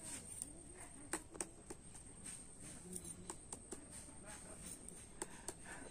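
Quiet room tone with a few faint, scattered soft clicks.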